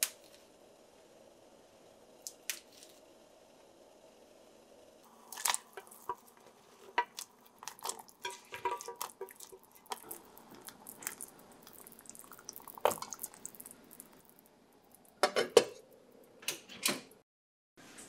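Kitchenware clatter: light clinks, taps and knocks of dishes, a small pot and utensils being handled. It begins about five seconds in, and the loudest knocks come near the end.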